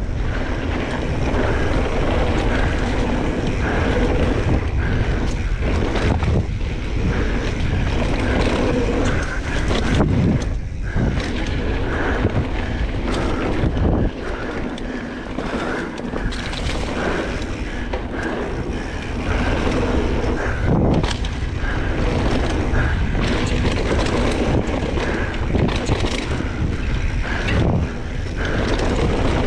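Wind rushing over the microphone mixed with tyre and frame noise from a 2017 Giant Trance 2 full-suspension mountain bike riding a dirt trail, with frequent short knocks and rattles over bumps.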